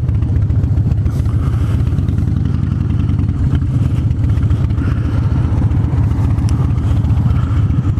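Harley-Davidson motorcycle's V-twin engine running steadily while riding, a deep, even throb with no marked revving.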